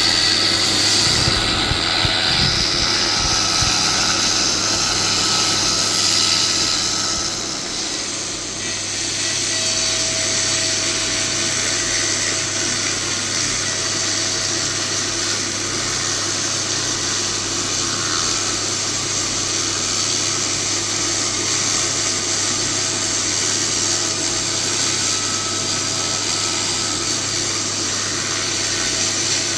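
Shark 120 laser cleaner ablating rust from steel: a steady, loud hissing buzz over a constant low hum, easing slightly about eight seconds in and then running on evenly.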